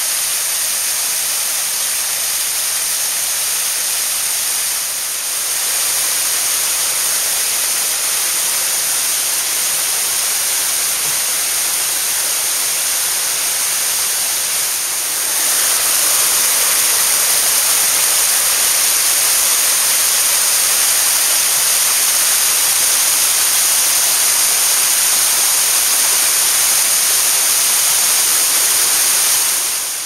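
A 40 m waterfall rushing steadily, heard as a loud, even hiss of falling water. It grows a little louder about halfway through.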